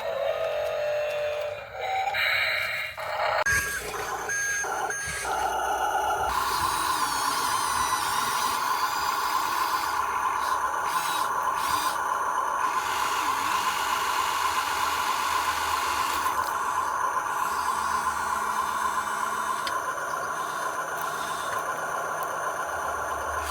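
Electric drive motor and gearbox of a radio-controlled model construction machine whining. For the first few seconds the whine changes pitch and stops and starts briefly, then it holds steady.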